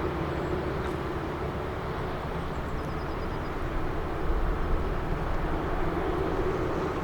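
Heavy construction machine's diesel engine running steadily, its low rumble growing louder about four seconds in.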